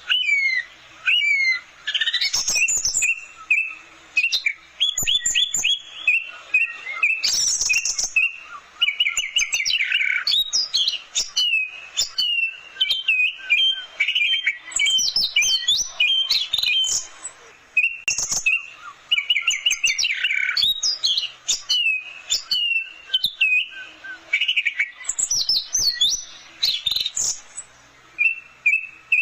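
Orange-headed thrush singing a fast, varied song of short whistled phrases and rapid repeated notes, broken by brief pauses.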